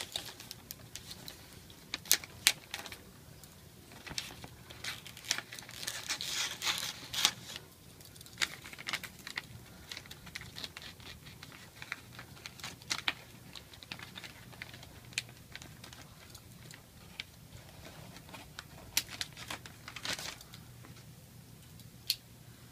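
Kraft wrapping paper and packing tape being cut, peeled and pulled open by hand: intermittent paper crinkling and rustling with scattered sharp clicks and ticks, a longer rustle about six seconds in.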